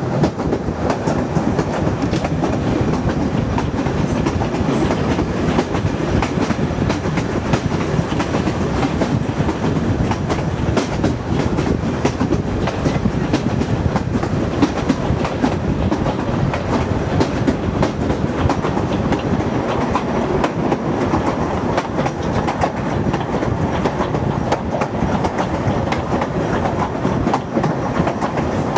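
A train running along the track: a steady rolling noise with a dense, continual run of wheel clicks on the rails.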